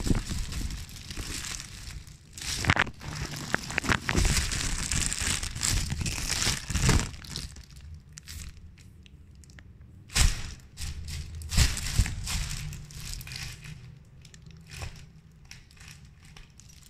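Thin clear plastic bag crinkling and rustling as a cat wriggles and paws inside it, in uneven bursts. The rustling is dense for the first several seconds, then comes in fewer, sharper rustles around ten and twelve seconds in, and turns soft near the end.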